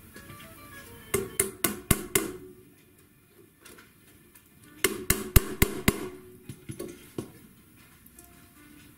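Upholstery hammer driving tacks into the wooden frame of an antique Voltaire armchair seat: two quick runs of about six blows each, a few seconds apart, with a few lighter taps after the second run.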